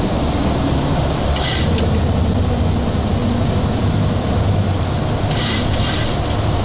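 Steady rushing noise of a Boeing 737-800 flight deck climbing after takeoff, airflow and engine noise together. Two short hisses come through, about a second and a half in and again about five and a half seconds in.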